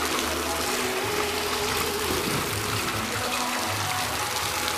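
Floodwater running over a street, a steady rushing with faint music in the background.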